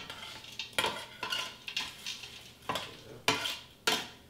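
A spoon stirring diced frozen onion, celery and bell pepper in melted butter in a stainless-steel pot, scraping against the pot in about seven short strokes.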